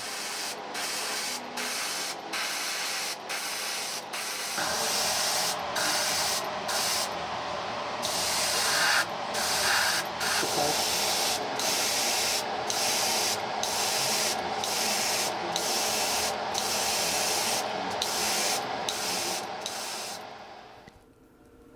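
Spray gun hissing as it sprays DuraFil surface filler in a long run of short bursts broken by brief pauses.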